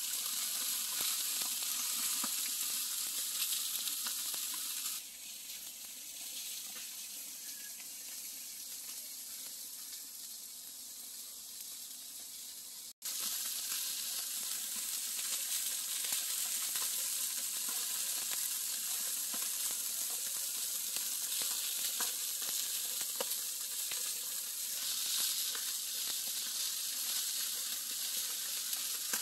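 Chicken wings sizzling on a barbecue grill grate, a steady hiss with scattered small pops. It turns quieter for a stretch in the first half, cuts out for an instant, then comes back louder.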